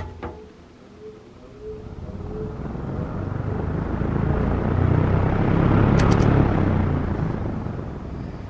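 1984 Lakewood P-223/M box fan with a TPI F-18-TE blade starting up on low speed: a click, a faint motor hum, then a whoosh of moving air that builds over several seconds as the blade spins up, easing off a little near the end. A few light ticks sound about six seconds in.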